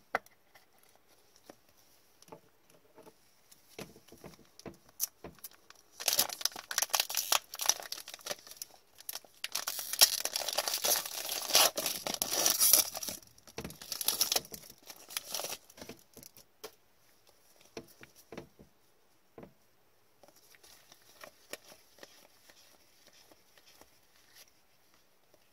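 Foil wrapper of an Upper Deck hockey card pack being torn open and crinkled, a loud crackling stretch of several seconds in the middle. Before and after it, light clicks and rustles of cards being handled.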